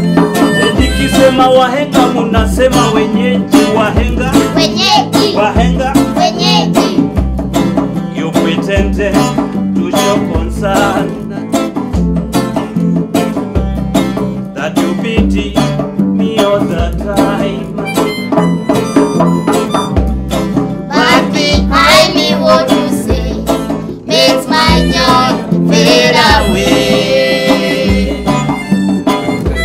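A small acoustic band playing live: a harmonica carries the melody over strummed acoustic guitars, with a steady djembe beat.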